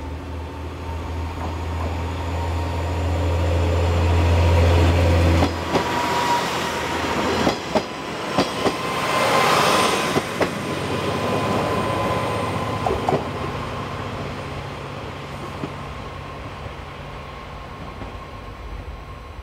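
Two-car KiHa 47 diesel railcar set approaching and passing close by. A low diesel engine drone drops away sharply about five seconds in. Then several wheel clacks over rail joints come as the cars go by, loudest about ten seconds in, and the sound fades as the train runs away.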